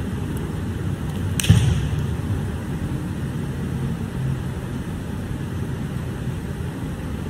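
Footwork of a changquan wushu routine on a carpeted floor: one sharp slap-like impact about a second and a half in, over a steady low background rumble.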